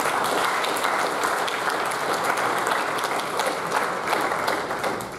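Audience applauding: a dense, steady patter of many hand claps that starts abruptly and dies away near the end.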